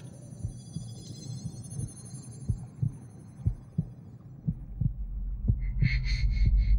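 A mother's heartbeat heard from inside the womb: repeated low double thumps over a steady low hum. A low rumble swells about halfway through, and a fast high-pitched pulsing starts near the end.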